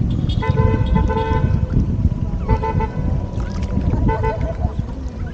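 A horn honking several times: one long note of about a second, then two groups of short beeps, over a steady low rumble.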